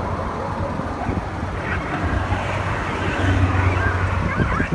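A vehicle engine running steadily, with wind noise on the microphone and a few short, higher calls in the second half.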